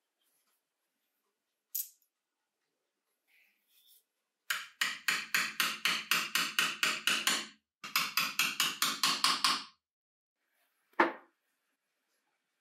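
Rapid tapping, about five sharp strikes a second, in two runs of two to three seconds each, followed by a single sharp knock near the end.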